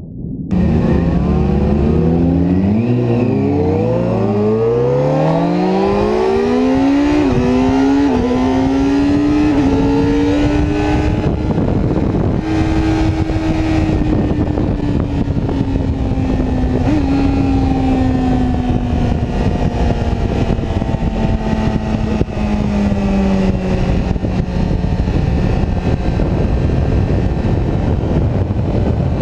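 Sportbike engine heard onboard, accelerating hard and revving up through several upshifts, then held at high revs on a straight. The revs ease off and drop near the end, with steady wind rush over it.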